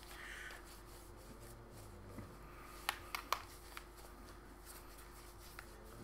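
Faint rustle of a tissue wiping a phone, with a few short clicks from handling the phone about three seconds in.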